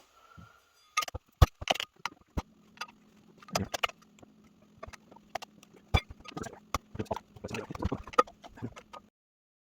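Irregular metal clanks and knocks of pry bars working apart the heat-warped housing inside a Chrysler A904 automatic transmission, over a faint steady hum. The sound stops abruptly about nine seconds in.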